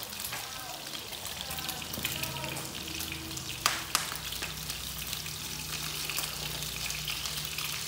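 Pork rib pieces sizzling and crackling as they fry in a pan, with two sharp clicks near the middle as chopsticks stir the meat against the pan. A low steady hum runs underneath.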